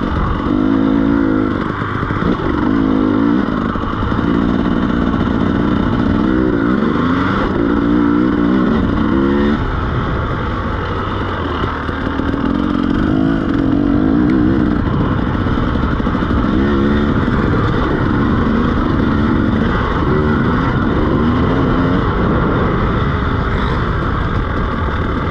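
KTM EXC 300 two-stroke dirt bike engine, fitted with a SmartCarb 2 carburettor, under way. It revs up and backs off again and again as the rider accelerates and lets off the throttle.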